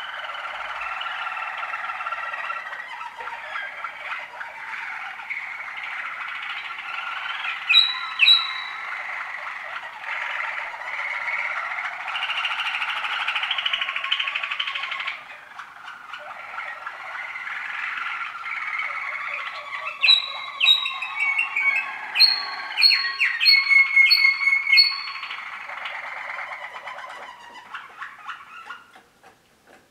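Waterslager canary song from young birds of 2013: a continuous rolling, bubbling song. It is broken by short, clear, bell-like high notes about eight seconds in and in a quick series a little past two-thirds of the way through. The song pauses briefly about halfway and dies away near the end.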